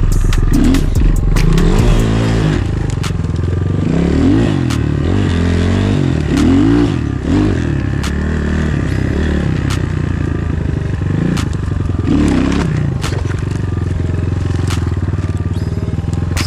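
Enduro dirt bike engine revving up and down again and again as it is ridden over rough ground, with scattered knocks and clicks.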